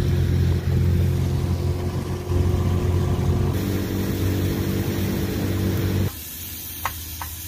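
Boat's outboard motor running steadily under way. It cuts off abruptly about six seconds in, leaving a quieter background with a few light clicks.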